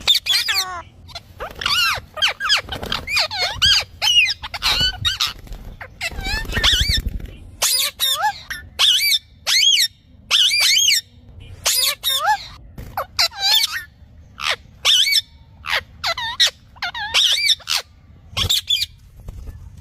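Parrot calling: a long run of short, squeaky calls, each wavering up and down in pitch, one after another with brief gaps.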